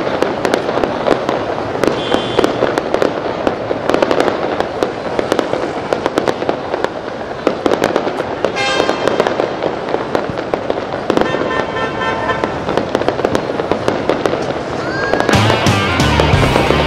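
Aerial fireworks display: a loud, dense, continuous crackle of bursts and pops. Near the end, music comes in over it.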